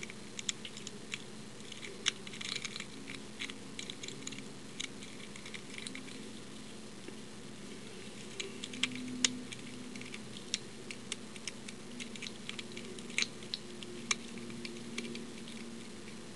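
Lock pick working the pins of an old Yale pin tumbler lock under tension: irregular small metallic clicks and scrapes as an S pick lifts and sets the pins.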